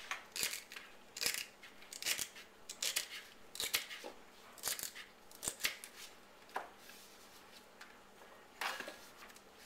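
Kitchen knife chopping celery stalks on a cutting board: a sharp cut about every half second to a second, stopping about two-thirds of the way through, with one more sharp sound near the end.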